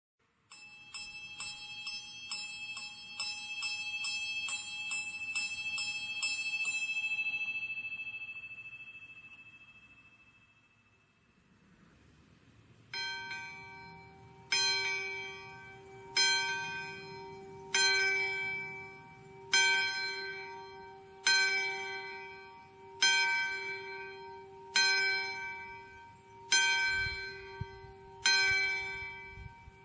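Church bells. First a higher-pitched bell is struck rapidly, about two and a half strokes a second, for around six seconds and then rings out and fades. After a short gap a bell tolls slowly, one stroke about every 1.7 seconds, with a steady hum lingering between strokes.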